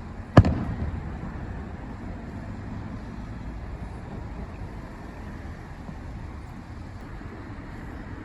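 A single firework shell bursting with a sharp boom about half a second in, its low rumble echoing away over the next second, over a steady low background rumble.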